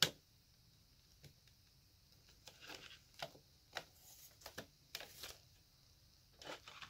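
Plastic CD jewel case being handled: a sharp snap of the case at the start, then a run of small clicks and light rustling as the paper booklet is worked out from under the lid's tabs, and another click near the end.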